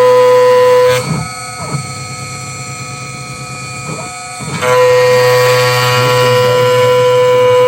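CNC router spindle running at 7000 rpm, its end mill cutting a trochoidal pocket with a loud steady high tone. About a second in, the tone drops away for roughly three and a half seconds as the tool runs through the unloaded part of its loop, leaving a fainter whine that slides up and down. The cutting tone then returns.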